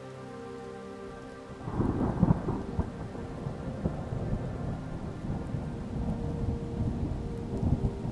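Soft music with held tones, cut off about two seconds in by a loud, uneven low rumbling noise that starts abruptly and continues with a few louder surges.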